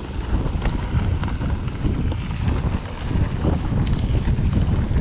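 Mountain bike descending a trail: wind buffeting the camera microphone over a steady rumble of tyres and frame, with scattered short rattles and clicks from the bike.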